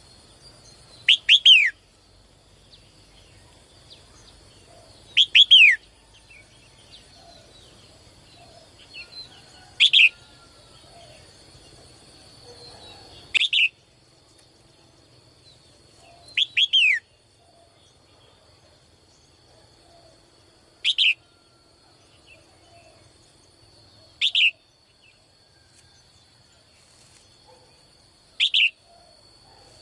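A bird calling again and again, about every four seconds: eight short calls, each sweeping down in pitch, the first few doubled. A faint steady high tone runs underneath.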